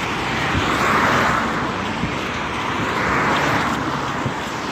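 Cars passing on a wet road, the tyre hiss swelling and fading twice, about a second in and again past three seconds.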